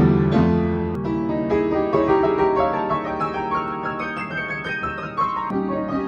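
Upright acoustic piano being played: a run of notes and chords that ring on over one another, with a louder chord at the start.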